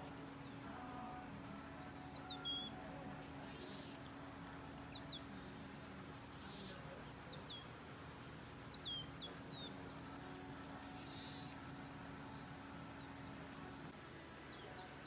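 Marmosets calling: a rapid scatter of very high-pitched chirps and short falling whistles, with a few longer hissing bursts in between. A faint steady hum underneath stops near the end.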